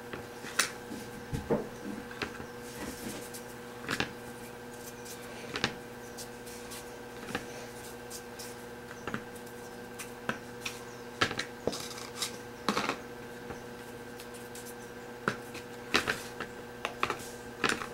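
Irregular light clicks and taps of a knife and fingers against a plastic food-storage tray and lid as soft dough balls are cut, rolled and set down, over a steady faint hum.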